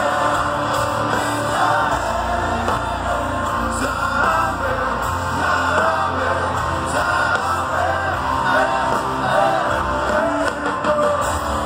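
Live rock band playing at full volume on an open-air stage, with a sung vocal melody over guitars and drums, recorded from within the crowd.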